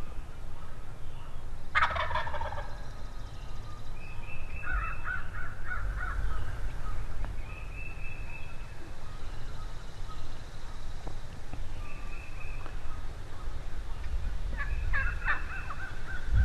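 Wild turkey gobbling: one gobble about two seconds in and another near the end, with softer bird calls in between.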